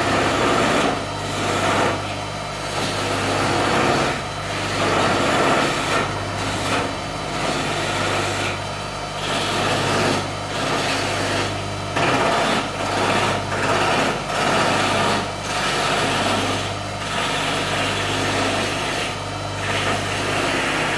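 Wood lathe motor running steadily while a hand-held turning tool cuts a spinning wooden spindle, the rough cutting noise coming and going in short, irregular strokes.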